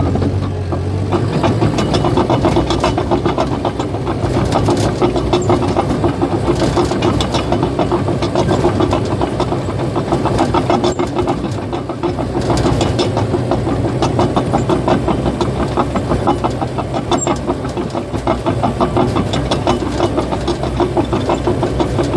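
Caterpillar bulldozer's diesel engine running steadily while the machine moves, with a fast, continuous clatter and squeal from its steel tracks.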